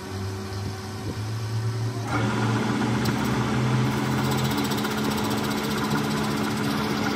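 Metal lathe with a low machine hum, its spindle starting about two seconds in, after which it runs steadily, louder and fuller, spinning a gunmetal bushing blank in a three-jaw chuck.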